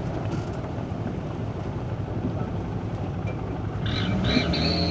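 Daihatsu Gran Max pickup's engine running as the loaded truck works through a muddy rut, getting louder with rising revs from about three and a half seconds in. A few short high-pitched tones sound near the end.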